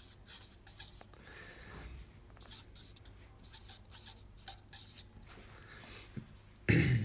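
Felt-tip marker writing on paper in short scratchy strokes, stopping about five seconds in. A brief louder sound comes just before the end.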